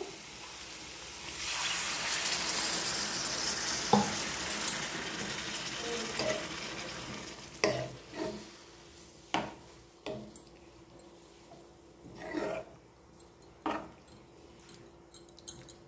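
Water poured into a hot pan of spiced potato and cucumber curry hisses and sizzles for several seconds, starting about a second and a half in and fading out by about seven seconds. A metal spatula then stirs the curry, with scattered knocks against the side of the metal pan.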